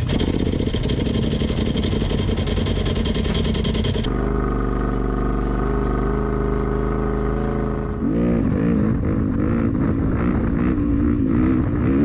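Off-road vehicle engines in three edited cuts: a loud, rough engine running to about four seconds in, then an engine holding a steady note, then from about eight seconds an engine revving up and down.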